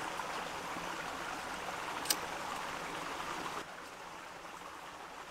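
Steady rushing noise of running water, like a nearby stream, with a single sharp click about two seconds in; the rushing drops a little in level past halfway.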